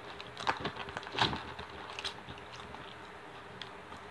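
A person biting into and chewing a crunchy fried onion ring close to the microphone. There are three sharp crunches in the first two seconds, the loudest a bit over a second in, then softer chewing.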